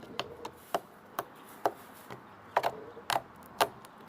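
Bead slime being squeezed and pressed by hand, making a string of sharp clicking pops about twice a second, some in quick pairs.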